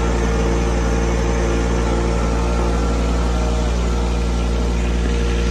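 Compact tractor's engine running at a steady, even speed while the tractor drives along, heard from the operator's seat.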